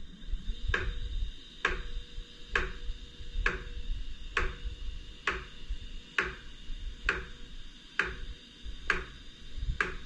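iOptron GEM28 equatorial mount slewing its declination axis at top speed 9: a steady high motor whine with a sharp clunk repeating evenly about once a second. The clunk comes only on this axis and at high speed, and the owner wonders whether it is causing backlash in the mount.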